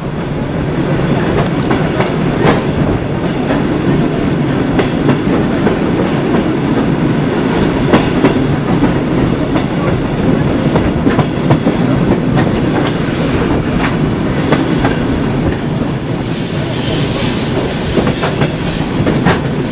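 Passenger train running along the track, heard from an open carriage window: a steady rumble of wheels on rails with scattered sharp clicks at the rail joints. A faint high wheel squeal comes in near the end.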